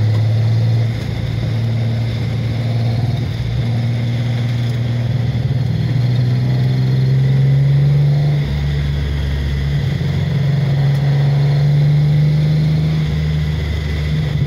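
Datsun 260Z's 2.6-litre straight-six engine pulling hard, heard from inside the cabin. The engine note falls about a second in, climbs steadily to about eight seconds, falls again, then holds.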